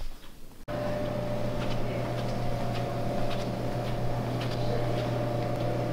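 A steady machine hum, low with a thin higher whine above it, that starts abruptly about a second in. Faint footsteps on a hard floor tick through it.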